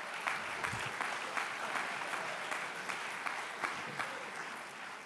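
Congregation applauding, many hands clapping, the applause dying away toward the end.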